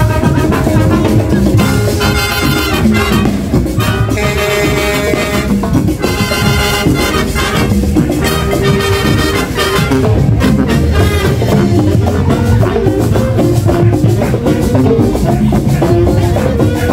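Marching band playing a Latin dance tune: trumpets and sousaphones carry short, repeated brass phrases over steady drums and percussion.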